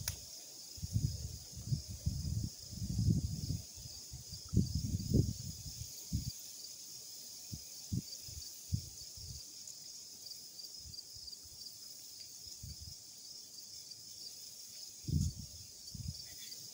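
Irregular gusts of wind buffeting the microphone, heaviest in the first few seconds and again near the end, over a steady high-pitched chorus of insects.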